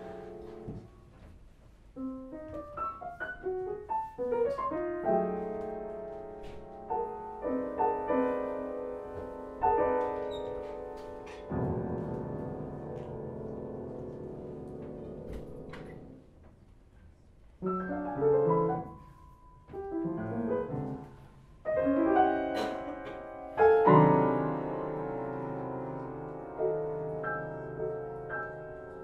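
Upright piano played solo: quick rising runs of notes, then a long held chord left ringing, then loud struck chords that ring on.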